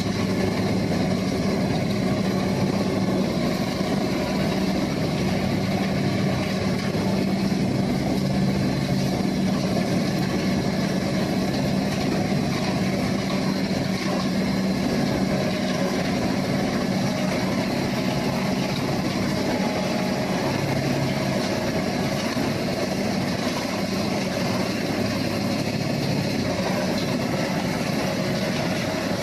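A heavy engine running steadily at a constant speed, with a low steady hum.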